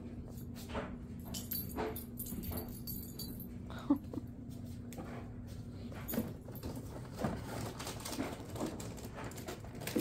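A dog whimpering in short bursts, with soft knocks and scrapes of a rubber Kong treat toy being nosed and pawed across the carpet.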